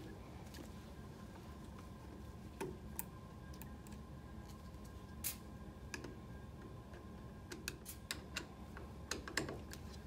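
Faint, scattered metallic clicks and ticks of a #2 Phillips screwdriver backing out the screws of a heat-sink bracket on a printhead's sheet-metal housing, with a quick cluster of clicks near the end.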